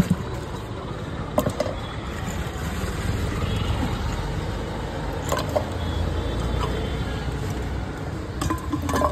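Steady rumble of street traffic, with a few sharp clinks of steel utensils that come more often near the end.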